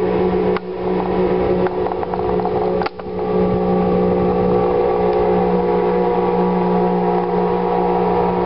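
Outboard motors of two small motorboats running steadily at speed as they pass on the river, a constant engine tone.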